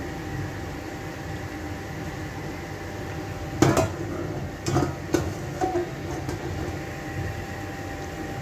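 A steel cooking pot knocked down onto a gas stove, then a few light metal clinks from the pot and a mesh tea strainer, over a steady background hum.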